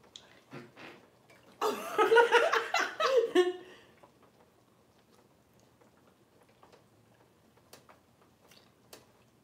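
A woman's wordless vocal sound lasting about two seconds, starting near the two-second mark. After it come a few faint light clicks, like chopsticks tapping a metal pot.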